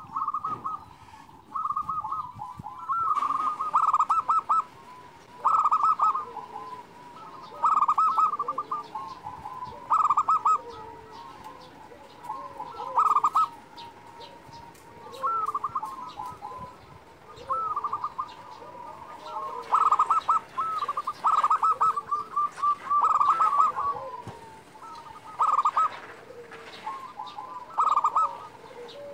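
Zebra dove (perkutut) cooing: short rolling staccato phrases repeated about every two to three seconds, with softer notes in between.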